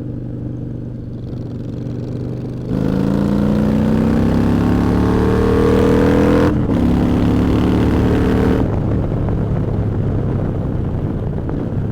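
Motorcycle engine running steadily, then the throttle is opened hard and the engine revs up, climbing in pitch. A brief break for an upshift comes past the middle, the pitch climbs again, and it eases back to a steady cruise later on.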